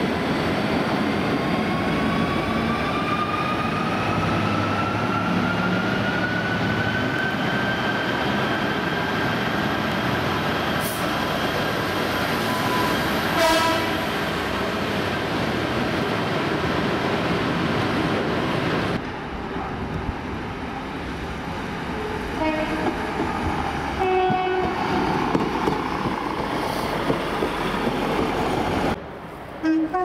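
Class 66 diesel locomotive hauling a freight train through a station: a steady heavy rumble with a whine that rises in pitch over the first several seconds. Short horn notes sound about 13 seconds in and again around 22 to 25 seconds, and the rumble drops to the quieter clatter of the passing wagons at about 19 seconds.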